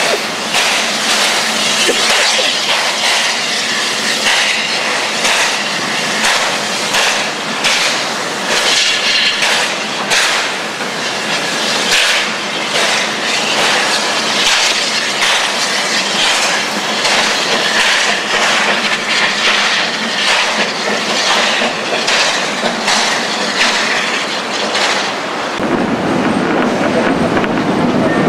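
Steam locomotive running close by, its exhaust chuffing in a steady rhythm over a loud hiss of steam. Near the end this gives way to a lower, steadier rumble of the train rolling along, heard from on board.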